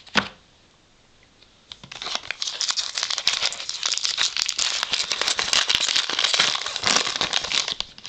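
A single knock at the start, then, from about two seconds in, a foil baseball card pack wrapper being torn open and crinkled in the hands: a continuous dense crackle that stops near the end.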